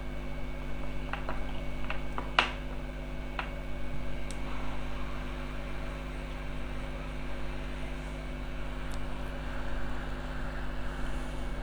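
Steady fan noise and electrical hum, with a few small clicks and taps of tools on the bench between one and three and a half seconds in; the sharpest comes about two and a half seconds in.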